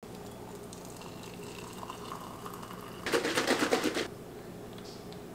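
Water poured from a glass kettle into a ceramic mug, a faint thin trickle. About three seconds in, a louder second of rapid crackling.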